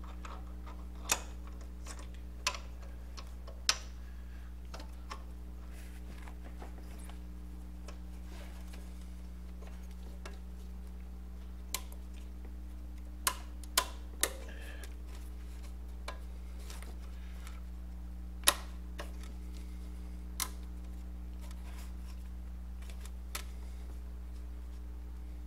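About ten sharp metallic clicks and taps, spaced irregularly, from hand tools and parts being worked at the serpentine belt tensioner of a stopped engine. Under them runs a steady low hum.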